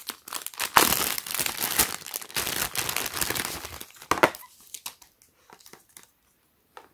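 Crinkling and rustling of a silver foil zip-lock bag being pulled open and handled, stopping about four seconds in, followed by a few faint light clicks.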